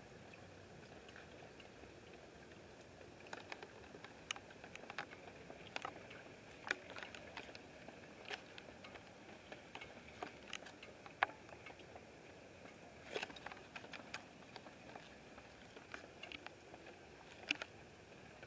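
Faint, scattered drops of rain tapping irregularly, the first drops ahead of an approaching thunderstorm, over a steady low hiss. The taps begin a few seconds in and come in uneven clusters.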